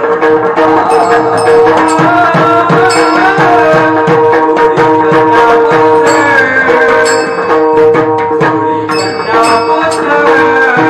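Kirtan music: mridang drum strokes with falling bass tones, bright ringing strikes of small hand cymbals (taal), and a wavering melody over a steady drone.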